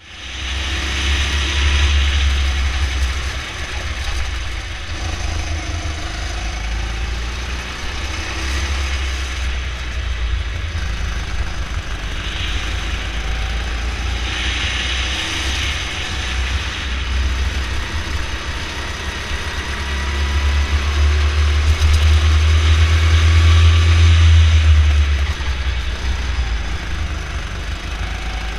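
Go-kart engine running as the kart laps the track, heard from on board. It grows louder under throttle near the start and again for a few seconds about twenty seconds in.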